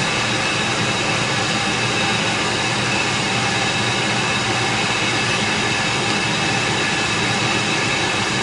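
Steady mechanical running noise, an even whooshing hiss with a few faint steady high tones, unchanging throughout.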